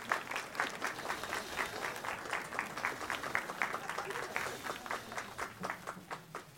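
A small group of people clapping hands, the separate claps quick and irregular.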